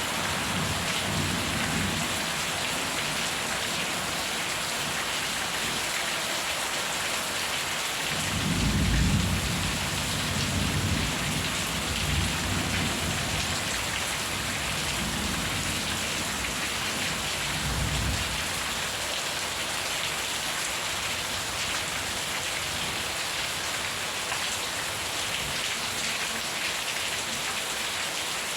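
Steady heavy rain falling, with low rolls of thunder rumbling under it, the strongest about a third of the way in and another a little past halfway; the last third is rain alone.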